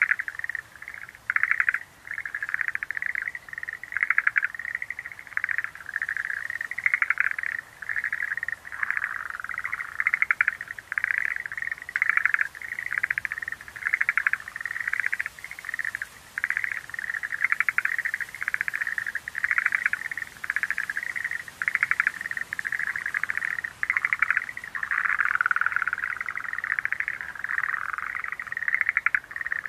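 Schlegel's green tree frogs calling in chorus: many short trilled calls, each about half a second long, overlapping and following one another without a break.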